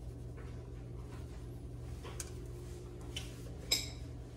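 Faint steady low hum with a few light taps, then one short, sharp clink that rings briefly about three and a half seconds in, as kitchenware is handled during seasoning.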